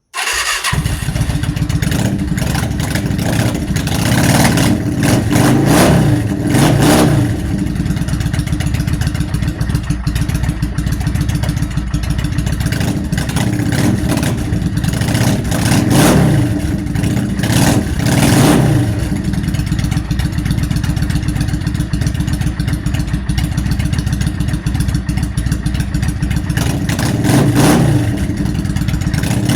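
Yamaha V Star motorcycle's V-twin engine running after its carburetor intake boots were replaced, idling and being revved up and back down several times. The owner thinks the carburetors still need cleaning.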